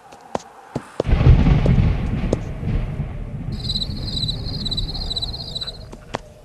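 A deep, thunder-like rumble that starts suddenly about a second in, loudest at first and slowly dying away, with sharp cracks scattered through it. A high, quickly repeating sound comes in over the rumble for a couple of seconds in the middle.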